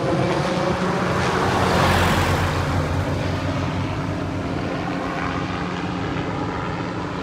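Tree-trimming helicopter's rotor and engine, a steady drone that fades gradually as the helicopter flies away.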